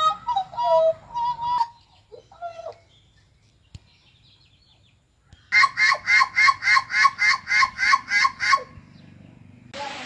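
Hooded butcherbird (jagal Papua blorok) singing: whistled, sliding notes and a short call, then after a pause a run of about a dozen fast repeated notes, about four a second. A steady hiss begins near the end.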